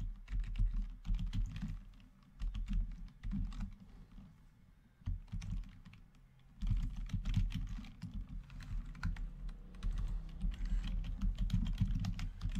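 Typing on a computer keyboard: runs of quick keystrokes, with a lull of about two seconds near the middle.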